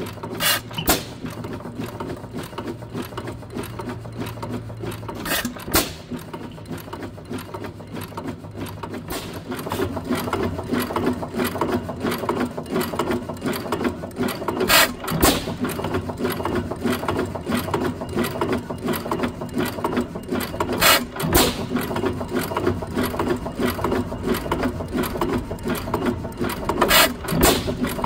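12 HP Witte hit-and-miss engine running on its own, now running after long storage: a loud firing stroke every several seconds, with the fast clatter of its valve gear and igniter as it coasts between them. It runs on a stiffer governor spring, fitted because the exhaust detent was holding the exhaust valve open and stopping it from firing.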